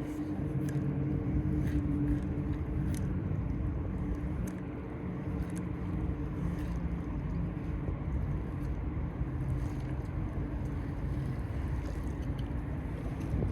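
An engine running steadily: a low rumble with a steady hum that eases off about halfway through.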